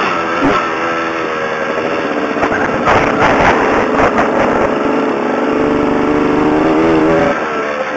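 Suzuki PE 175's two-stroke single-cylinder engine running under way, its pitch rising and falling as the throttle is worked. About three seconds in the sound turns rougher and noisier for a second or so before the engine note steadies again.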